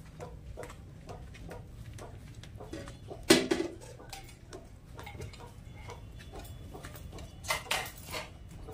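A metal pan or bowl clanks once, loudly, about three seconds in, with a short ring. More clatter follows near the end, over a run of light clicks.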